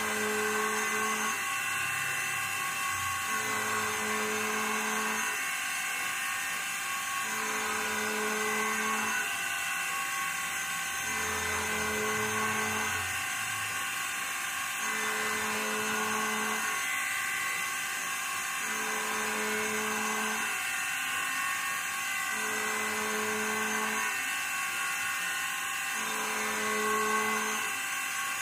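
CNC router spindle and end mill side-milling a 304 stainless steel plate: a steady high whine with cutting noise, under which a lower hum comes and goes regularly about every two seconds.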